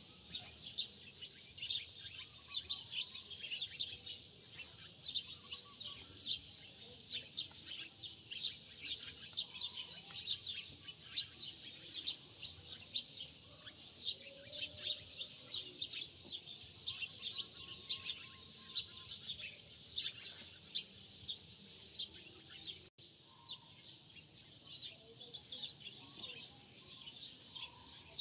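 Small birds chirping in a dense, continuous chorus of short high chirps.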